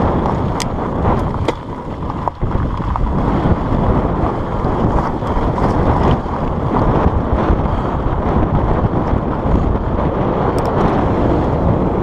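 Heavy wind noise buffeting the camera microphone on a moving fat bike, a dense steady rush. It is broken by a few sharp clicks and rattles from the bike on the gravel trail.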